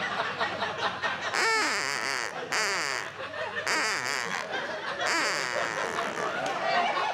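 Live audience laughing.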